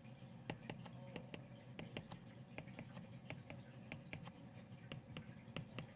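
Faint, quick taps of a stylus on a tablet screen, a few per second and irregular, as electron dots are dotted on one at a time.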